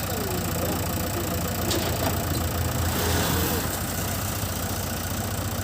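Diesel engine of a JCB 3DX backhoe loader idling steadily, with a low-pitched even running note. A brief sharp click comes about a second and a half in.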